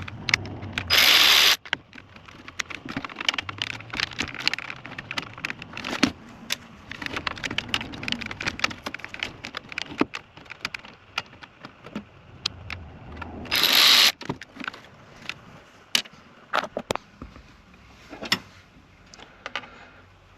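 Small clicks, taps and rattles of hand tools and screws working under a car dashboard, with two louder bursts of noise of about half a second each, one about a second in and one about two-thirds of the way through.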